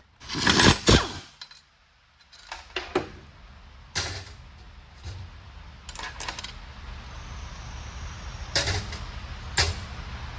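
Wrench and bolts clinking on the metal housing while the 5/8-inch bolts come out of a truck transmission shift top. The loudest clatter comes in the first second, followed by scattered single metallic clicks and knocks.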